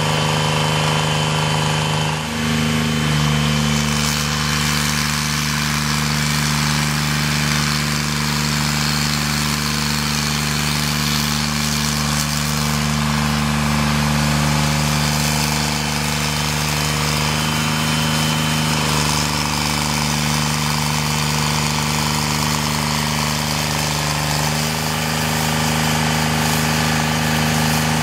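Carlton SP 7015 self-propelled stump grinder's engine running steadily. Its note dips briefly about two seconds in and shifts slightly a couple more times later.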